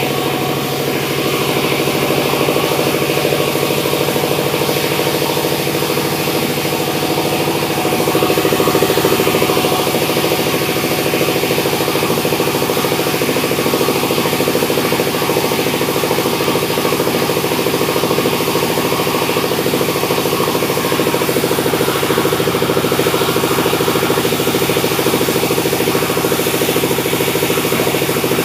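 Sawmill machinery running steadily, a constant engine-like drone, a little louder from about eight seconds in.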